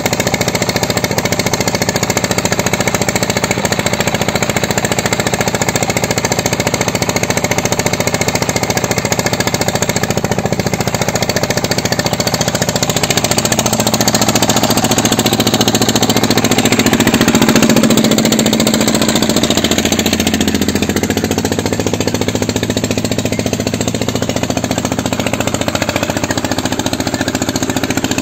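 Old Petter stationary engine running steadily with a rapid, even thudding beat as it drives a belt-driven water pump. It grows slightly louder around the middle.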